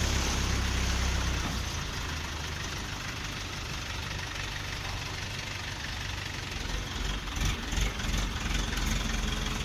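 Heavy machine's engine idling with a steady low rumble, louder for about the first second and a half and then settling lower.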